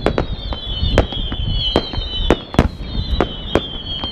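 Fireworks display going off: a rapid, irregular string of sharp bangs, two or three a second, over a low rumble, with several high whistles that slowly fall in pitch.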